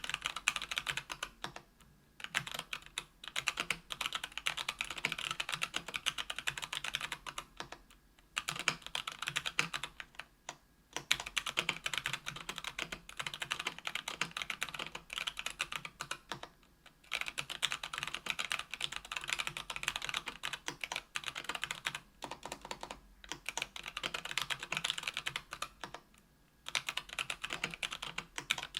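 Typing on a KBDfans Tofu 65% aluminium keyboard with stock, unlubed Kailh BOX Brown 60 g tactile switches on an aluminium plate. Rapid keystroke clatter comes in runs of several seconds, broken by a few brief pauses.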